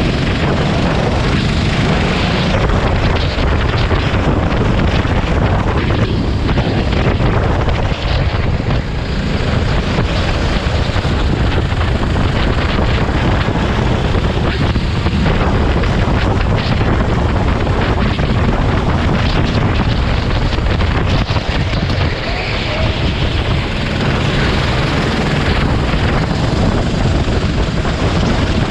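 Sodi RT8 rental kart's 390cc four-stroke single-cylinder engine running hard at racing speed, heard onboard with wind noise on the microphone. The sound dips briefly about eight seconds in and again about 22 seconds in.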